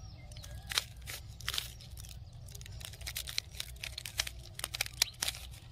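A 3x3 plastic puzzle cube's layers being twisted quickly by hand: a string of short, irregular clicks and rasps, several a second.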